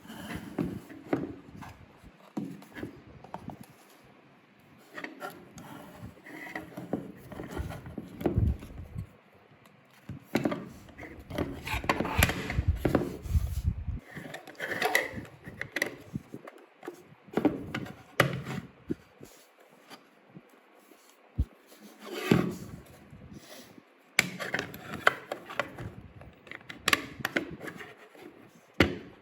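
Packaging and toy figures being handled during an unboxing: irregular rubbing and scraping with scattered clicks and knocks, busiest about ten to fourteen seconds in.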